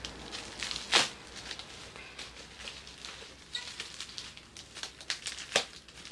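Plastic parcel packaging with bubble wrap being torn open and crinkled by hand: a run of small crackles and rustles, with a sharper snap about a second in and another near the end.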